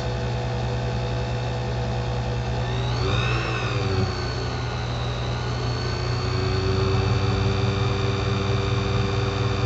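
Small electric motor of a watchmaker's lathe running steadily with a low hum and a higher whine; its pitch rises and falls back briefly about three seconds in. The lathe is being used to thin the lower pivot of a balance staff.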